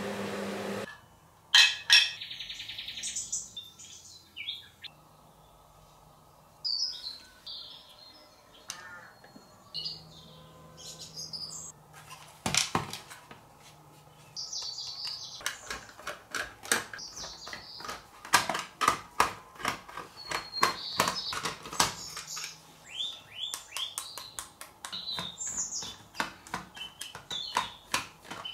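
Sharp plastic clicks and taps from hands and a screwdriver working on a quartz alarm clock, coming thick and fast in the second half. Short high chirps sound between them.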